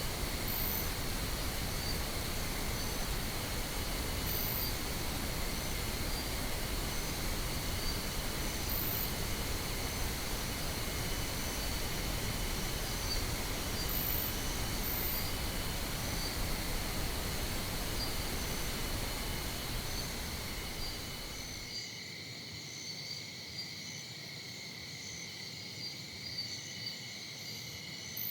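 Steady pink noise laid over a chorus of crickets or other insects chirping. About three-quarters of the way through, the noise stops and only the insect chorus is left.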